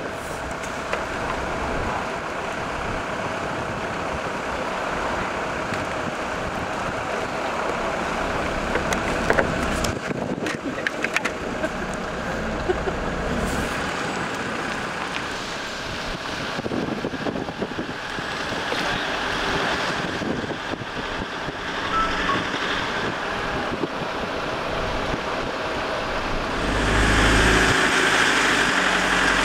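Steady vehicle running noise with wind on the microphone, a few sharp clicks about a third of the way through, and a louder rush with deep rumble near the end.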